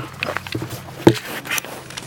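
Irregular clicks and knocks, the loudest about a second in, over a faint steady low hum; the siren is not yet sounding.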